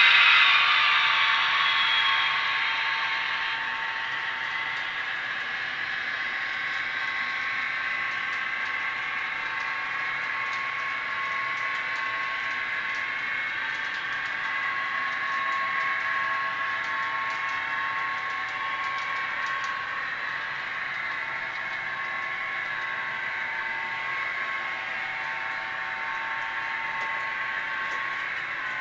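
Diesel locomotive engine sound played by a Digitrax SDH164D sound decoder through the small baffled speaker of a model F3A locomotive, winding down over the first few seconds after being notched down, then running steadily at a lower throttle setting.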